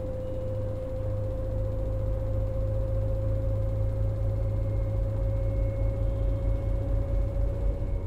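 LG FHT1208SWL direct-drive front-load washing machine running its rinse cycle. A steady motor whine rises slightly in pitch over a low rumble from the tumbling drum.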